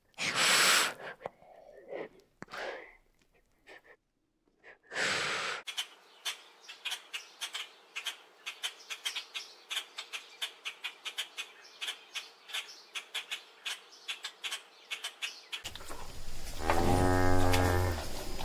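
Asian water monitor hissing in a few short breathy bursts, then about ten seconds of quick, sharp, uneven clicks, then a cow mooing twice near the end.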